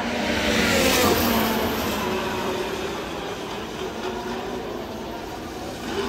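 A racing car's engine passing by: its note sweeps down in pitch as it goes past about a second in, then fades as the car moves away.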